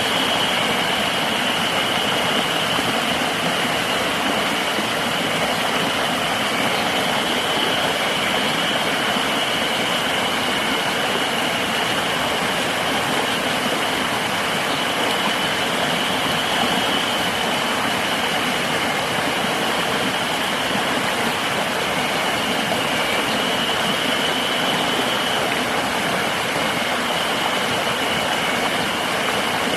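River water rushing steadily, with a continuous high-pitched insect drone over it.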